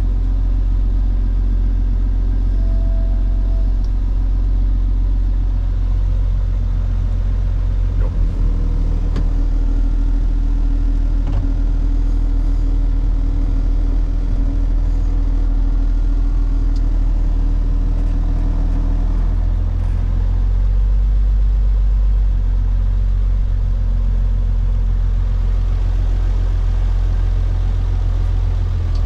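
Diesel truck engine running steadily, a low drone heard from inside the cab, with a couple of brief clunks about eight seconds in.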